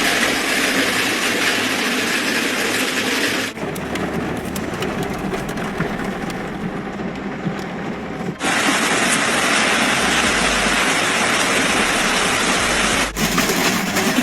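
Heavy hail pelting down, a dense, loud hiss of countless small impacts. It changes abruptly three times as separate recordings cut in, one with more distinct clattering hits.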